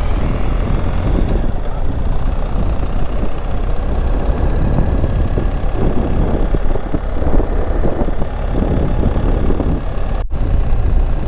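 Vehicle engine and tyre road noise heard from inside the cabin while driving, a steady low rumble. The sound drops out for an instant near the end.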